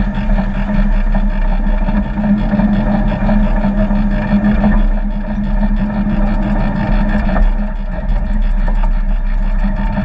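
A 7¼ inch gauge miniature railway locomotive running steadily along the track. It makes a continuous even drone with a low rumble from the moving train.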